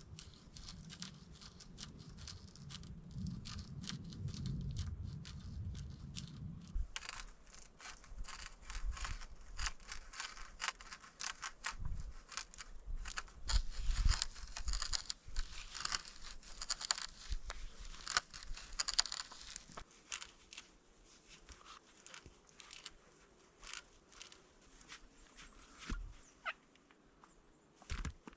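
Dense, irregular crackling and rustling, thickest through the middle, after a low rumble that cuts off about a quarter of the way in.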